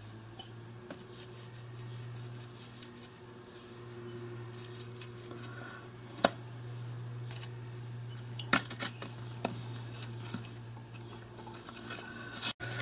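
Small metal valve parts clicking and tapping against a glass dish and the bench as they are handled and dipped for degreasing, a few sharper clicks among them, over a steady low hum.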